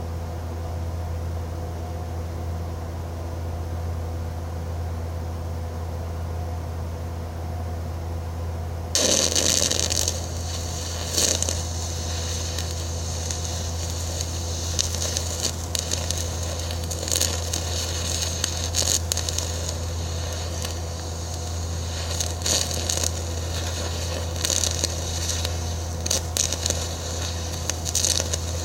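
A steady low hum, then about nine seconds in an electric welding arc strikes and crackles and sputters unevenly. The arc is drawn from a carbon gouging rod on reverse polarity at around 40 amps, with a 7018 rod fed in as filler to weld thin steel, a 'Texas two-stick' or poor man's TIG.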